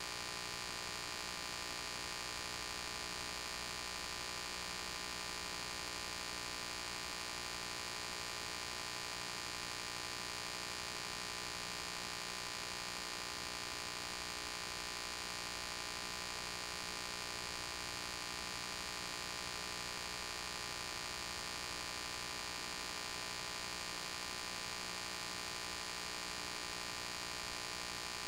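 Steady electrical hum with a hiss over it, unchanging throughout, with no other sound.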